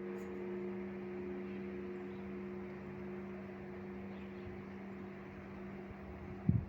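A large church bell's ring hanging in the air: a steady deep hum with a few overtones slowly dying away, the highest fading out a few seconds in. Near the end comes one heavy low stroke.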